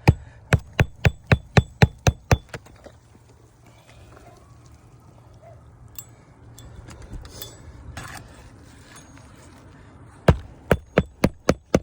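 Hand hammer driving roofing nails into a replacement asphalt shingle: a quick run of about nine ringing strikes, roughly four a second, then after a pause a second run of about six strikes near the end, a nail each run.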